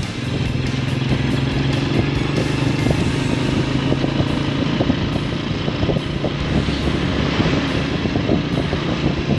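Motorcycle engine running steadily while riding along at an even pace.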